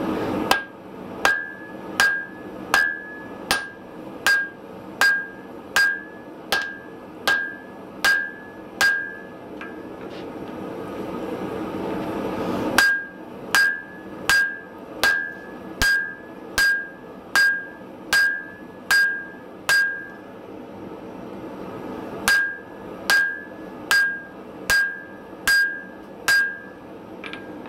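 Hand hammer striking a glowing block of wrought iron on a steel anvil, a bit more than one blow a second, each blow ringing briefly. There are three runs of blows with two short pauses, during which a low background roar swells.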